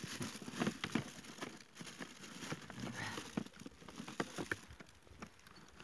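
Rummaging through a box of gear by hand: rustling and crinkling, with scattered small clicks and knocks as items are moved about.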